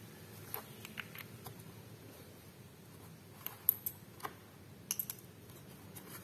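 Scattered light clicks and taps of small plastic action-camera accessories (adhesive mounts, a spare battery) being handled in a foam-lined hard case and set down on a tile floor, with a quick cluster of clicks about three and a half to five seconds in.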